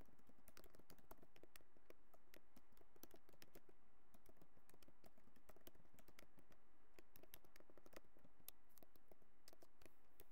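Typing on a computer keyboard: a fast, irregular run of key clicks as a sentence is typed.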